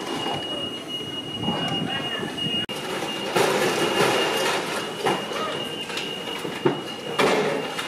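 Fireground noise: a steady high-pitched whine under continuous rushing, hissing noise that swells twice, about halfway through and near the end, with voices in the background.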